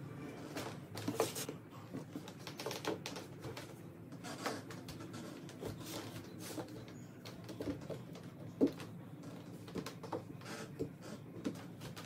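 Light, irregular taps and thumps of hands and socked feet landing on a hardwood floor during bodyweight exercises.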